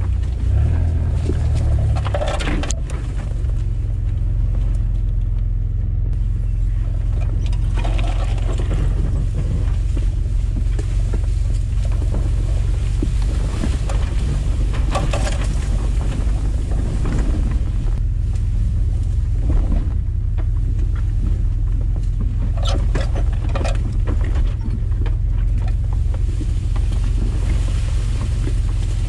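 Off-road 4x4 driving slowly over a rough dirt track, heard from a bonnet-mounted camera: a steady low engine and wind rumble on the microphone, with a few brief rustling noises.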